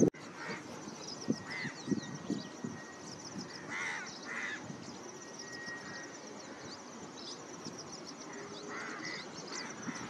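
Outdoor birdsong: short, harsh bird calls come in twos, a few times, over a steady high chirping of small birds or insects.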